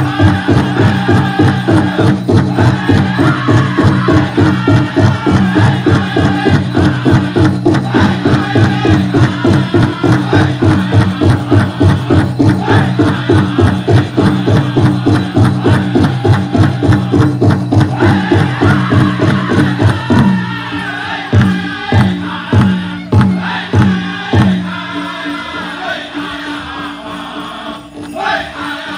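Powwow drum group singing a chicken dance song: a fast, steady beat on a big drum under group singing. About twenty seconds in the steady drumming stops and about five loud, spaced single beats follow, then the singing carries on more quietly.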